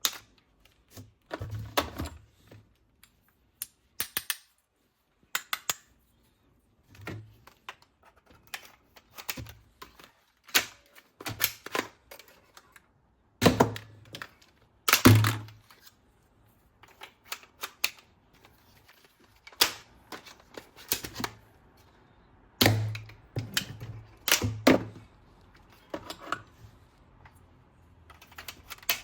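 Hard plastic toy weapon parts clicking and knocking as they are handled, in irregular single clicks and quick clusters, with a few louder knocks.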